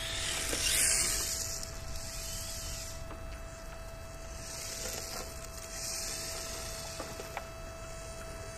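HSP 94123 1/10 brushless RC drift car running on asphalt, its tyres hissing as it slides; the sound swells about a second in and again around five seconds as it passes.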